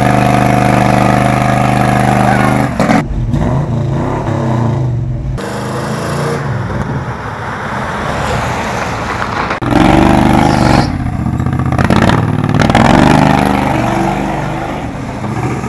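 Engines running in a string of short clips cut together, the sound changing abruptly at each cut: a small go-kart engine running while it smokes, a pickup truck, and a kart being driven.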